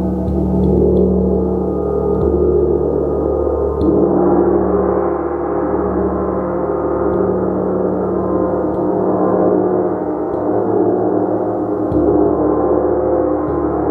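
A gong played continuously: a dense, sustained wash of many overlapping ringing tones that swells again about four seconds in and once more near the end as it is struck anew.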